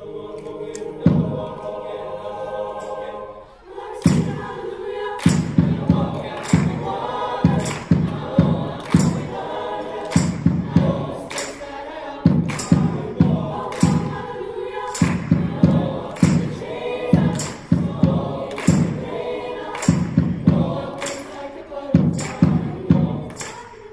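Mixed choir singing: held chords at first, then from about four seconds in the singing carries on over a steady beat of sharp thumps.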